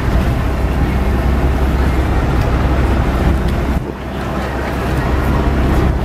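Wind buffeting the microphone over the steady run of a sportfishing boat's engine and water rushing along the hull. The low rumble drops away briefly about four seconds in.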